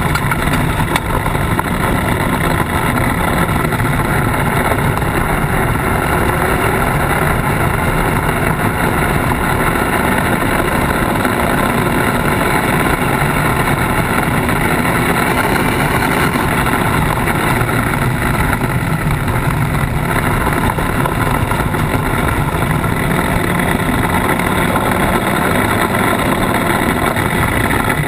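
Polaris RZR side-by-side's engine running steadily under way, with road noise from the tyres on the gravel and dirt track.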